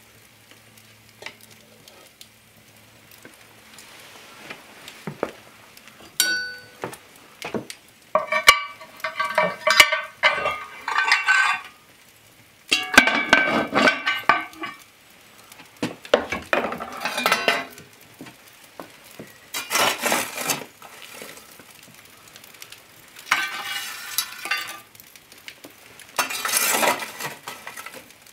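Cast-iron Dutch oven lid being set in place with clinks and ringing metal scrapes. After that, a fireplace shovel scrapes up live coals and tips them onto the lid in five separate bursts of scraping and clattering.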